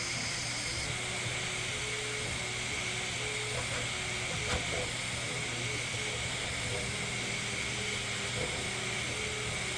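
Bambu 3D printer running mid-print: its stepper motors give short tones that hop between two pitches as the print head moves back and forth. Under them is a steady fan hum.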